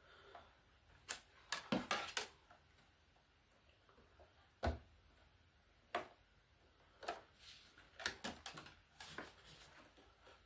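Scattered light plastic clicks and taps as white PTFE filament tubes are handled and pushed into the push-fit tube couplers on the back of a 3D-printer filament box.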